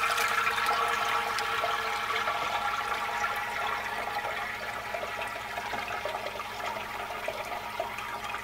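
Whey and soft curds poured from a stainless steel pot into a cheesecloth-lined colander, the whey splashing and draining through the cloth into a pot below. The pour gradually tapers off.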